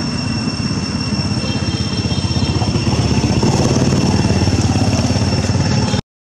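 A motor engine idling, a steady fast low throb that grows slightly louder partway through, with a thin steady high whine above it; it cuts off abruptly near the end.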